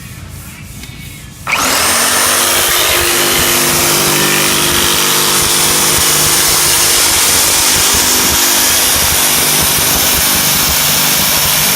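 A power tool starts suddenly and runs at steady high speed with a high whine, then winds down near the end.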